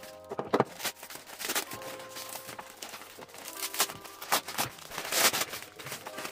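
Thin plastic carrier bag crinkling and rustling in irregular crackly bursts as it is pulled open and unwrapped by hand, loudest about half a second in and again about five seconds in.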